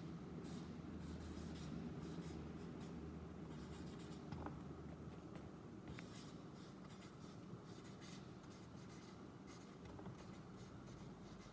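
Marker pen writing on a flip-chart pad: faint, irregular scratchy strokes as letters are written.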